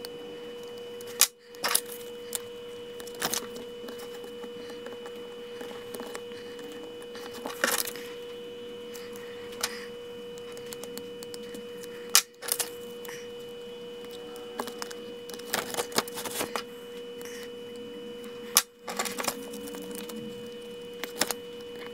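Hobby-knife blade scratching and ticking as it cuts shapes out of blue painter's tape stuck on silver tape, with small scrapes and bits of tape peeling, over a steady faint whine. The sound cuts out abruptly three times.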